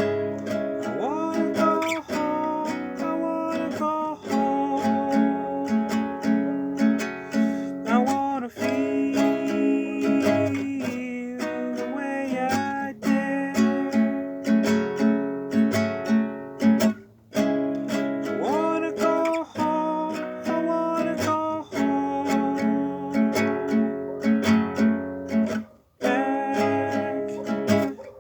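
Acoustic guitar music: a strummed instrumental passage of a song, with brief breaks about seventeen and twenty-six seconds in.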